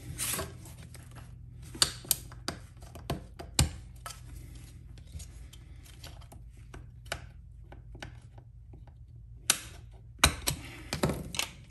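Sharp clicks and taps of a thin metal tool prying at the black plastic housing of a table-saw paddle switch as it is taken apart. There are irregular clicks in the first few seconds and another flurry near the end, over a steady low hum.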